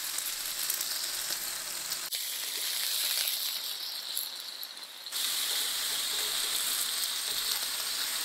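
Gyoza sizzling in oil on a tabletop electric griddle as they fry, a steady hiss that shifts abruptly in level about two and five seconds in.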